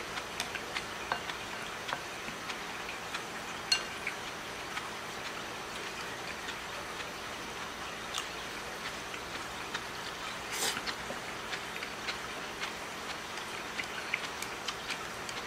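Eating noodles with chopsticks: scattered small clicks of the chopsticks against a ceramic bowl with chewing, at an uneven pace, and one louder, noisier mouth sound just past the middle.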